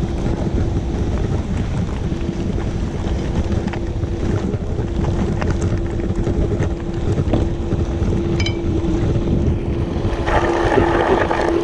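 Electric motor of a wheelchair bike attachment running with a steady whine while riding, over low wind rumble on the microphone and tyre noise; a rougher hiss comes in near the end.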